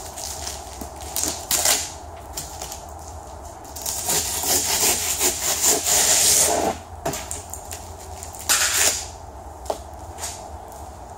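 Hand wood saw cutting through set expanding foam in uneven rasping strokes, stopping about nine seconds in.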